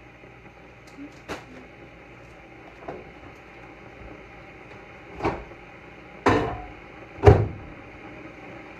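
Kitchen cabinet doors knocking shut as things are handled at the counter: a couple of light knocks, then three heavier thuds about a second apart in the second half, the last one the loudest.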